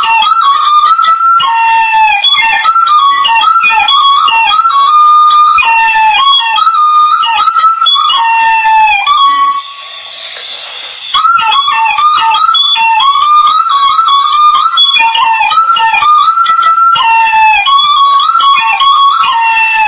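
Hmong raj, a bamboo pipe, playing a quick, ornamented melody with sliding notes. It breaks off briefly about halfway through, then resumes.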